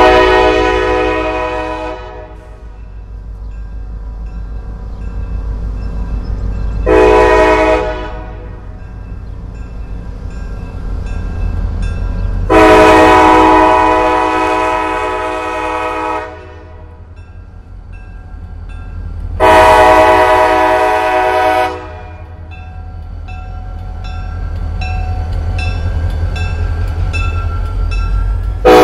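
EMD SD40-2 diesel locomotive sounding its multi-note air horn: a long blast, a short one about seven seconds in, then two more long blasts. Under the horn runs the locomotive's low engine rumble, growing louder near the end as it draws close.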